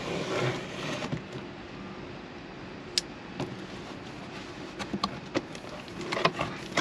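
A knife blade slitting the packing tape along a cardboard box lid, a scraping rasp in the first second, followed by the cardboard flaps being pulled open and folded back with a sharp click about three seconds in and a few light knocks and scrapes near the end.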